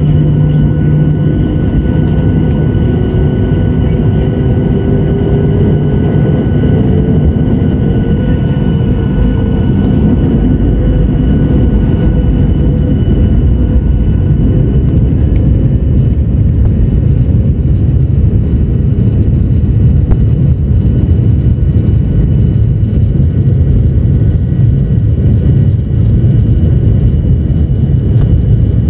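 Jet airliner's underwing turbofan engines heard from inside the cabin as they spool up for takeoff. A whine climbs in pitch over the first several seconds, then the engines settle into a loud steady rush with deep rumbling. As the plane speeds down the runway, the cabin rattles with short knocks.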